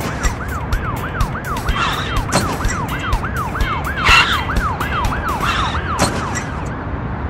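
Emergency vehicle siren in a fast yelp, its pitch rising and falling about four times a second, stopping about six seconds in. Background music with a steady beat plays under it.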